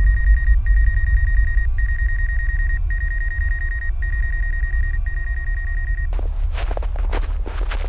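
A deep rumble under a steady high ringing tone that breaks off briefly about once a second. The tone cuts out about six seconds in, and footsteps begin crunching in snow.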